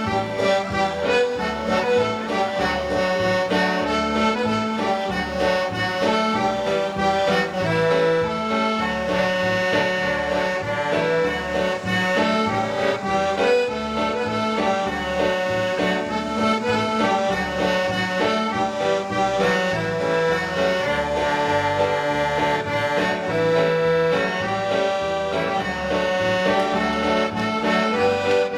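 Music with a steady beat and a pulsing bass line.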